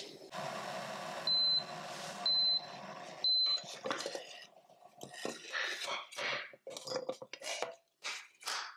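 Electric gooseneck kettle beeping three times, about a second apart, over a steady hiss. After that, glassware clinks and knocks as a glass pitcher is handled and set down on the counter.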